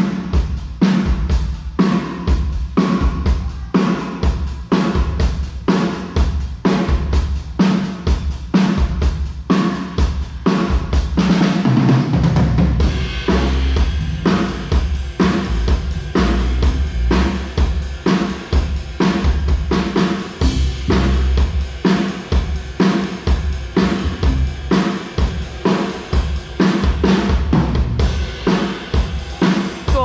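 Full drum kit played in a steady beat for the sound check: kick drum, snare, hi-hat and cymbals together, with a short fill about twelve seconds in.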